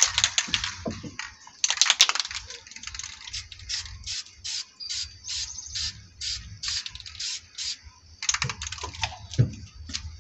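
Aerosol spray-paint can: the mixing ball rattles as the can is shaken, then the nozzle lets out a run of short hissing bursts of spray, about three a second. More rattling comes near the end.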